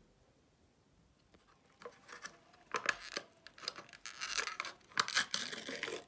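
Thin plastic crinkling and tearing as a snack is unwrapped: a clear plastic bag rustling and a yogurt cup's lid being peeled back. Quick, irregular crackling strokes begin about two seconds in, after a near-quiet start.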